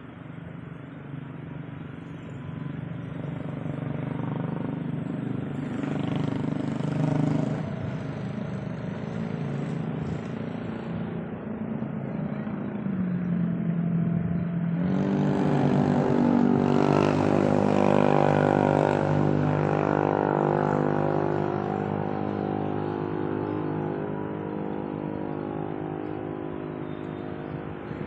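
An engine running steadily, growing louder towards the middle, stepping up in pitch about halfway, then easing off a little towards the end.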